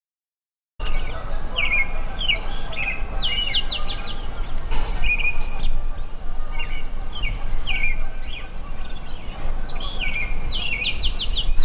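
Songbirds singing, short clipped chirps and quick runs of notes, the same phrases recurring every few seconds, over a steady low rumble.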